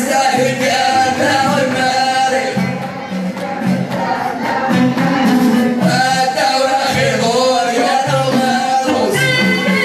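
Amazigh Ahidous folk music: men singing, with a violin and a rhythm beaten on large frame drums.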